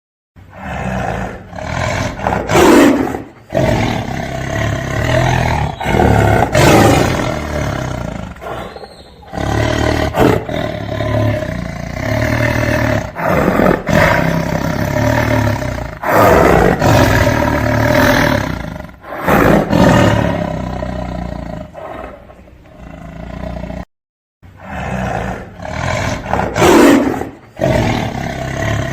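Tiger roaring again and again: long, rough roars with short breaks between them.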